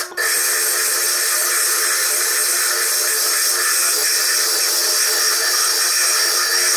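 Foredom bench lathe running while a diamond core drill grinds a hard stone into a sphere, a steady high whir and hiss. The footage is sped up three times.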